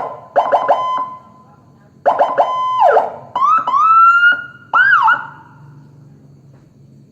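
Electronic police-escort siren with Whelen WP001 tones, played through a Barracuda siren speaker, stepping through its tones. It gives a few quick blips and a held tone, then after a short gap more blips and a falling sweep, followed by rising whoops and a quick rise-and-fall. It cuts off about five and a half seconds in.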